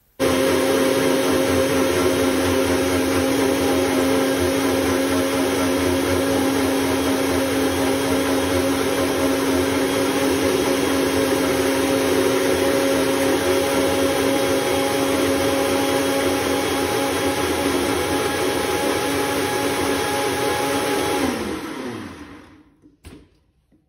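Singer Peppy Delite mixer grinder switched on, its motor running at a steady high hum and whine as it churns cream with water to bring out butter. Near the end it is switched off and the motor winds down, falling in pitch until it stops.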